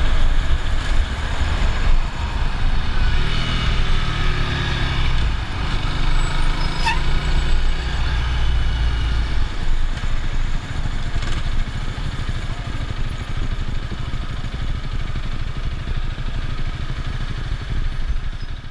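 Motorcycle engine running while riding in traffic, with steady wind and road noise. The deep low rumble eases off about halfway through.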